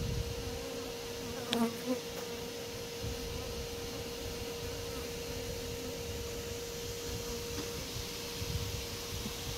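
Honey bee colony buzzing with a steady hum, with a brief louder buzz about one and a half seconds in.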